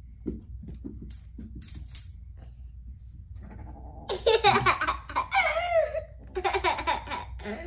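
A young child laughing and giggling in three bursts starting about four seconds in, the pitch jumping up and down. Before that, only a few light clicks.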